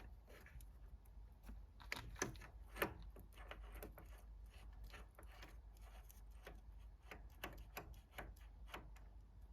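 Faint, irregular clicks and taps from a lathe's change gears being handled and meshed by hand, with a few louder clicks about two to three seconds in.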